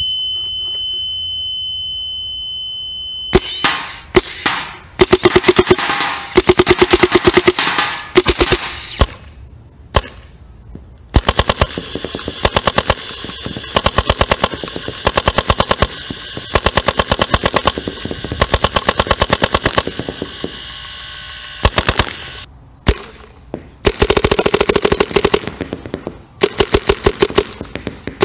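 Adrenalin Angel LCD electronic paintball marker firing rapid strings of shots, each string a second or two long with short breaks between. The strings start about three seconds in.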